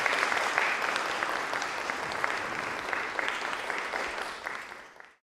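Audience applauding, a dense patter of clapping that fades near the end and then cuts off suddenly.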